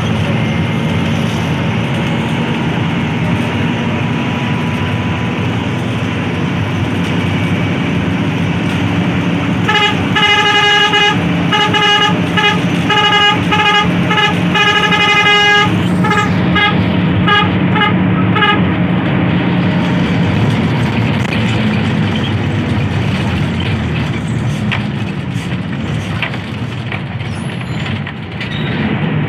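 Intercity bus horn sounding a quick run of repeated toots for about nine seconds, starting about ten seconds in, the toots getting shorter near the end. Under it the bus's engine and road noise run steadily.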